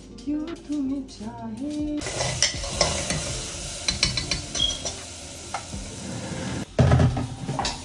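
Food sizzling as it fries in a pan, with a utensil stirring and clinking against the pan, starting about two seconds in. A louder clatter comes near the end.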